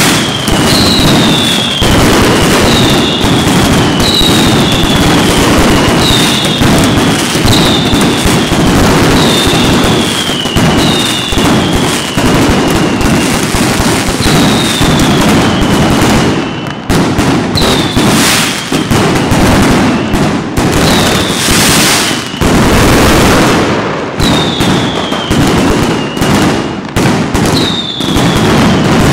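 Mascletà firecrackers and aerial salutes going off in a loud, dense, near-continuous barrage of bangs. Short falling whistles recur about every second and a half over the banging, and the barrage swells to its loudest about two-thirds of the way through.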